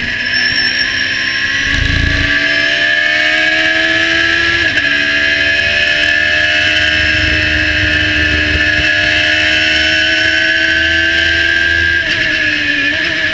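Radical SR3 1500's high-revving Suzuki Hayabusa-based 1500 cc four-cylinder engine at full throttle, heard from the cockpit. The pitch climbs out of a corner, drops sharply at an upshift about five seconds in, then climbs again to another brief drop near the end, with wind and road noise underneath.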